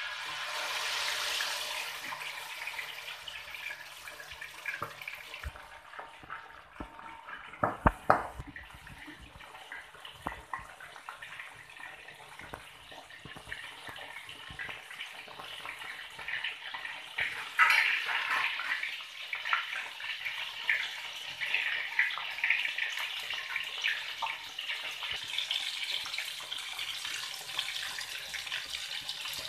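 Turmeric-coated pieces of ikan baung (catfish) sizzling and crackling in hot oil in a wok, starting suddenly as the fish goes in. There are a few sharp knocks about eight seconds in, and the sizzle flares louder a little past halfway.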